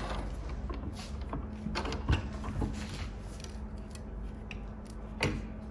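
Bent steel rod clamped in a bench vise being levered and twisted by hand, giving scattered metallic clicks and creaks over a low steady hum.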